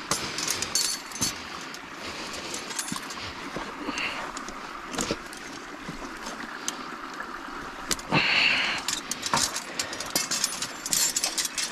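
Dry sticks and brush rustling and crackling as a steel KP-250 body-grip beaver trap is handled and set among them, with light metal clinks from the trap. A short, louder rustle comes about eight seconds in.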